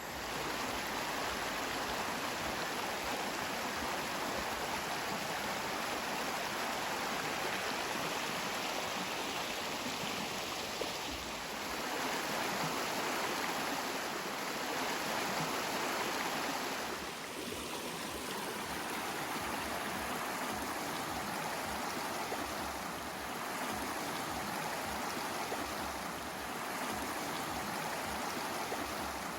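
Steady rush of flowing water, like a stream, swelling slightly in level a few times.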